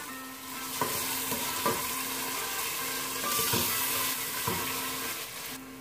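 Mixed vegetables and yogurt sizzling in hot oil in an aluminium stockpot as a metal spoon stirs them, the spoon knocking against the pot several times. The sizzle eases shortly before the end.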